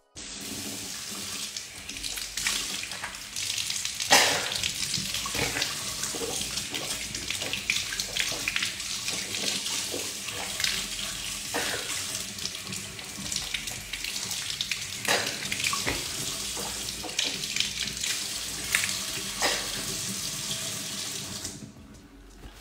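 Bathroom tap running into the sink: a steady rush of water with scattered small knocks. It stops shortly before the end.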